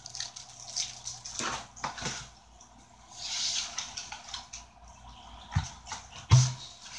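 Cardboard packaging being handled: soft rustling and scraping as a cardboard mailing tube is lifted out of a shipping box, with two dull knocks near the end.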